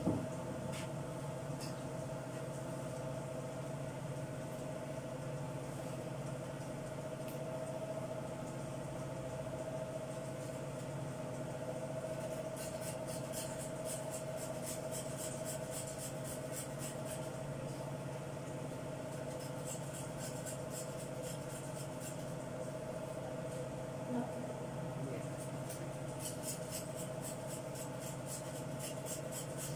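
Runs of quick, light, repeated strokes from hand food preparation at a cutting board, in three spells, starting about twelve seconds in, around twenty seconds in and near the end. A steady mechanical hum runs under them.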